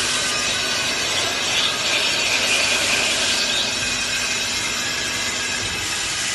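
Automatic CNC drilling and tapping center running, its spindles cutting metal castings: a steady grinding hiss that turns brighter for about two seconds near the middle.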